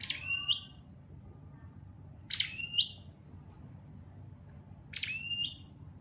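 Tailorbird calling: three loud, identical sharp calls about two and a half seconds apart, each about half a second long, starting high and dropping.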